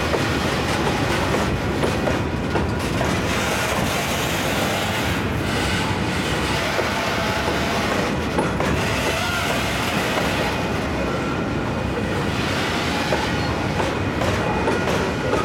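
Cars of a Union Pacific grain freight train rolling past steadily, their steel wheels clicking over the rail joints, with some faint wheel squeal.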